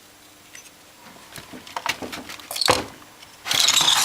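Handling noise from work on the radio chassis: scattered light clicks, a sharp knock about two and a half seconds in, then a burst of rustling near the end.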